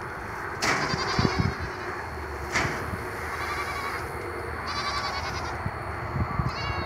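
Goats bleating now and then, with two sharp knocks, one about half a second in and one near the middle.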